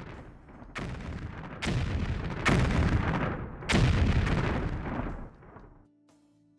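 A series of heavy booms, like explosions or artillery fire, about a second apart. Each starts suddenly and rumbles away slowly, and the run dies away near the end.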